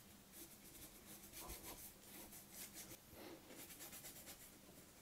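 Faint brush strokes on cardboard: a large paintbrush scrubbing thin, watery paint across the surface in a quick, irregular series of short scratchy strokes.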